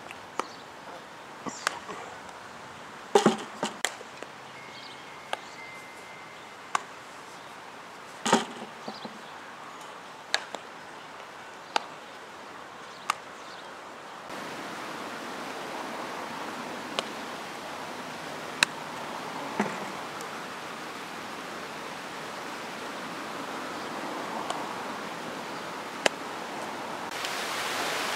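Scattered sharp pops and knocks of softballs smacking into leather gloves and off the infield dirt, the loudest two about three and eight seconds in. From about fourteen seconds a steady hiss of wind on the microphone rises under sparser pops.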